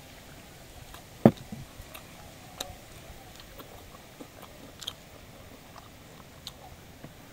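Close-up eating sounds: scattered wet mouth clicks and smacks of chewing fatty pork belly and rice, with one sharp knock about a second in.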